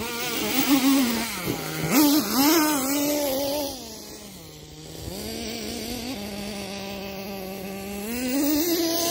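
Nitro glow engine of a Kyosho Mad Force RC monster truck running as it drives, its pitch rising and falling with the throttle, then settling lower and quieter for a second or so before climbing again near the end. The owner says it isn't running right: it idles fine but sputters a bit on throttle, running on fuel with extra oil in it.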